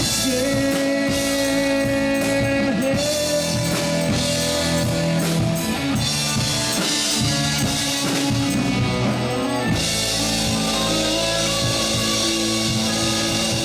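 Live country-rock band playing an instrumental passage with drum kit, bass and electric guitar, the guitar holding long notes with some bends.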